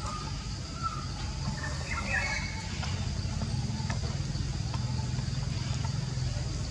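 Forest ambience: a steady low rumble with a steady high insect drone, and a few short bird chirps about one to two and a half seconds in.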